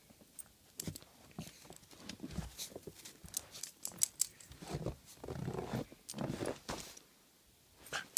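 Irregular crunching footsteps in fresh snow, busier and louder for a couple of seconds just past the middle.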